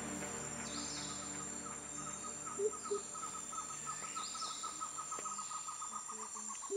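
Tropical rainforest ambience: a steady high insect drone under a fast, even run of calls at about six a second, with a few rising whistled bird calls and low paired hoots about two and a half seconds in and again near the end.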